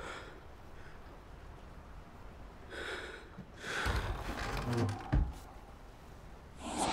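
The lid of an ornate wooden case is lifted open with a scraping rustle, ending in a sharp knock, after a short breath in a quiet room. A loud swell begins right at the end.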